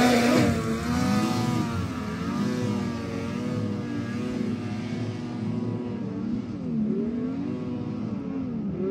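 Arctic Cat two-stroke snowmobile engine held at high revs as the sled skims across open water, its pitch wavering, with two short dips in revs in the second half. It fades steadily as the sled moves away.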